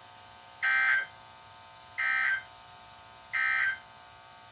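Emergency Alert System end-of-message signal: three short SAME data bursts about a second and a third apart, marking the end of the alert message.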